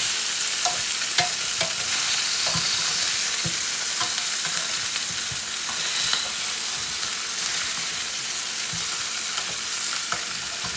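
Chicken pieces sizzling steadily as they brown in olive oil in a pan, with scattered light knocks and clicks of a utensil against the pan as the pieces are turned.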